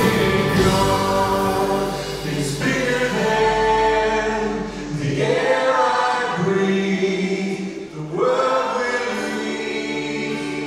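Voices singing together in a slow worship song: long held notes, with a new phrase starting about every two and a half seconds.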